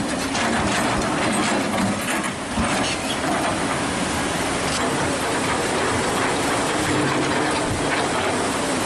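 Floodwater rushing over boulders, mixed with the steady hum of hydraulic excavators' diesel engines and scattered knocks.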